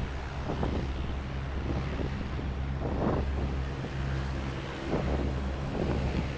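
Lockheed WP-3D Orion's four Allison T56 turboprop engines running at taxi power, a steady low propeller drone. Wind buffets the microphone in short gusts a few times.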